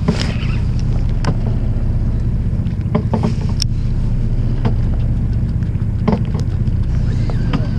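Fishing boat's engine running with a steady low drone, and a few light clicks and knocks over it.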